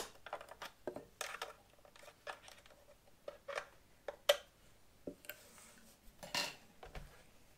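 Handling noise from a compressor air hose's metal nozzle adapter being taken off and changed: irregular small clicks and metallic clinks, with a sharp click right at the start.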